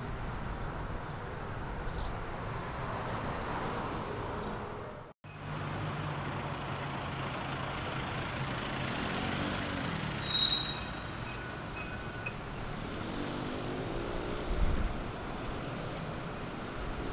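Steady city street traffic noise, with vehicle engines rising and falling in pitch as they pass. A short, high squeal comes about ten seconds in. The sound drops out briefly about five seconds in.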